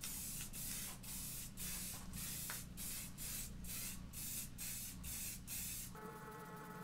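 Aerosol spray-paint can spraying a base coat in short hissing bursts, about two a second. The bursts stop about six seconds in.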